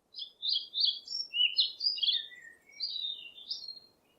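A songbird singing: a quick, varied run of high chirps and trills, with a short break about two and a half seconds in before a second, shorter phrase.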